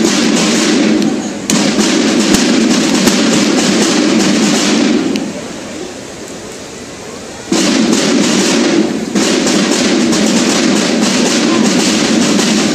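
Banda de guerra drums playing loud rolls and cadences together, in two long stretches: the playing drops away a little after five seconds and starts again sharply about two and a half seconds later.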